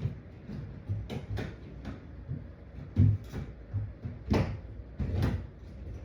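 Irregular knocks and clunks of tools and gear being picked up and handled, about six distinct hits spread out with a few low thuds between them; the loudest come about three and four and a half seconds in.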